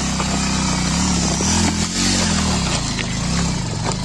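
Motorcycle engine revving up and down about once a second as the bike is ridden and pushed over loose rocks, with a few sharp knocks.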